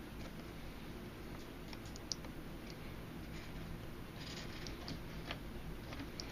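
Faint handling of paracord being worked through a bracelet by hand: scattered small clicks and rustles, with one slightly sharper click about two seconds in, over a low steady hum.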